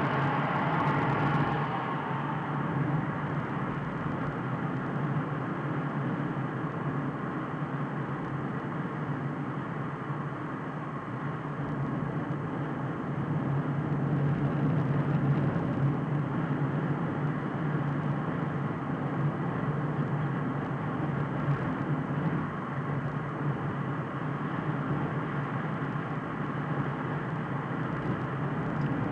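Steady road and engine noise of a car driving at about 70 km/h, heard from inside the cabin. A brighter rush fades out in the first couple of seconds.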